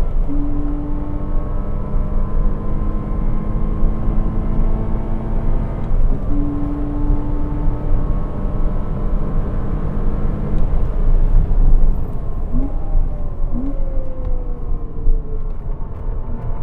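Porsche Cayman 987's 2.7-litre flat-six engine running hard on track, heard with heavy road and wind rumble. Near the end the engine note falls, with two short blips in between.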